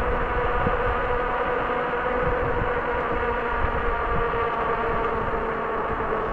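Electric bike motor whining steadily at about 25 mph, with wind rumbling over the microphone.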